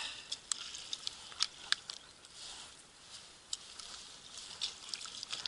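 Boots crunching on snow-covered lake ice: irregular sharp crunches and clicks.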